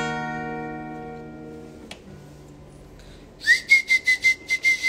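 Acoustic guitar's final strummed chord ringing out and fading away. Then, about three and a half seconds in, a high whistle-like tone pulses rapidly, about seven times a second, for about a second and a half.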